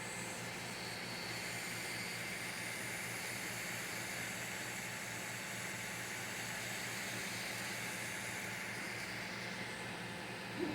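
Creality CR-M4 FDM 3D printer running: a steady fan hiss over a low hum, with faint higher whines that shift as the motors move. A single short click comes near the end.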